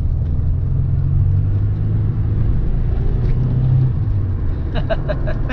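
Nissan 300ZX's twin-turbo 3.0-litre V6, on its stock intake, pulling hard under full acceleration, heard from inside the cabin. The engine note eases about four seconds in.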